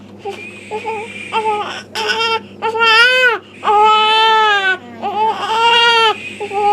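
Newborn baby crying: short broken sobs, then three long wails, the first rising and falling in pitch. The father takes it that the baby needed to burp.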